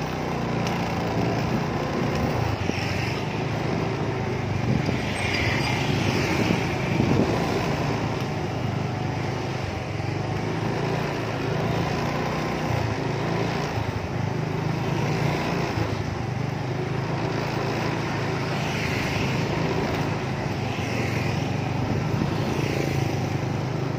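Steady low rumble of wheels rolling on an asphalt street, with motorcycle and car traffic passing.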